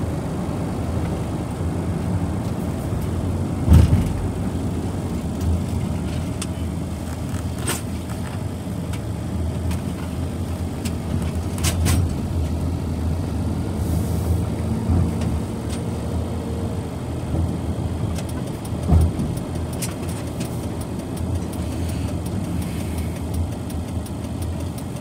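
Steady engine and road noise heard inside a moving car's cabin, with a few sharp knocks or clicks along the way, the loudest about four seconds in.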